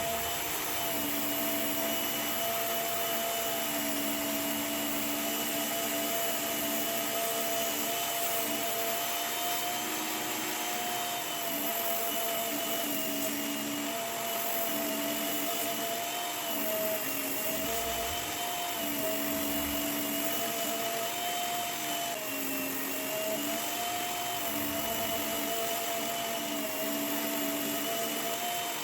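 Work Sharp Knife and Tool Sharpener, a small electric belt sharpener, running steadily with a high motor whine while a blade is sharpened on it. The pitch dips briefly a few times, mostly in the second half.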